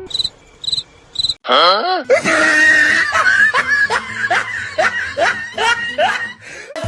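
Three short high beeps, then a brief sliding tone, then a person laughing loudly in a long run of repeated 'ha' bursts that stops suddenly near the end.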